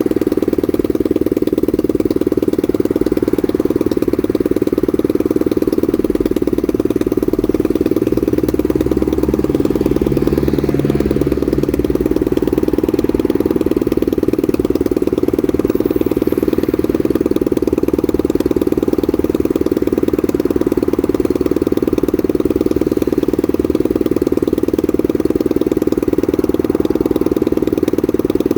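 Honda NSF100 minibike's single-cylinder four-stroke engine idling steadily.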